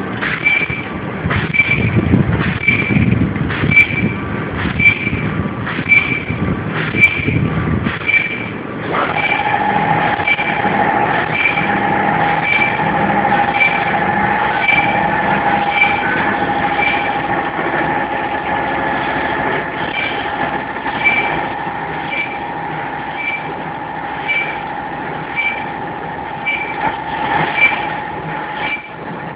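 Non-woven bag making machine running, with a regular mechanical tick a little under twice a second as it cycles. A steady whine joins in about nine seconds in.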